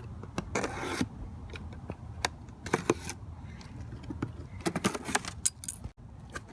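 Handling of a parts package being opened: short crinkling and scraping rustles and a scatter of sharp clicks and light clinks.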